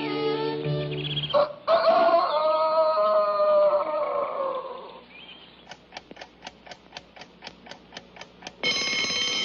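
Cartoon sound effects: the music breaks off and a long drawn-out call slides slowly down in pitch, then a clock ticks about four times a second, and an alarm-clock bell rings loudly near the end.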